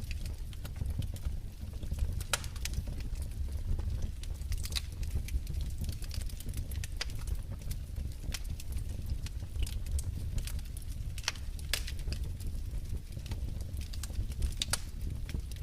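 Wood fire in a fireplace crackling: irregular sharp pops and snaps over a steady low rumble.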